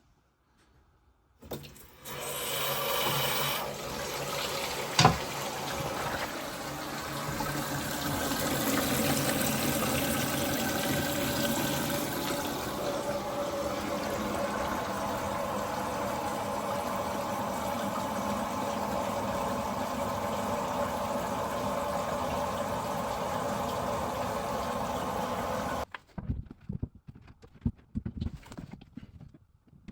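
Toilet flushing and its concealed cistern refilling: water starts about two seconds in and runs steadily for some twenty seconds, then cuts off suddenly near the end. A single sharp knock about five seconds in.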